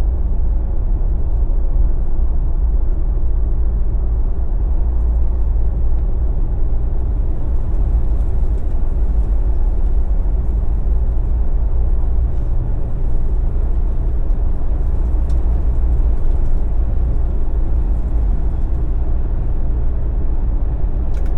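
Steady low rumble of a Jeep driving at road speed, heard from inside the cabin: engine and all-terrain tyres on the road.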